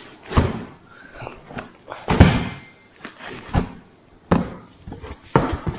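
About five separate knocks and thuds, the loudest about two seconds in, as new metal exhaust parts are handled and set down.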